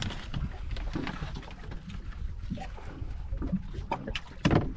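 Steady low rumble of wind and water around a boat on open sea, with faint clicks from knife work on fish fillets on the gunwale, and a few sharp knocks near the end.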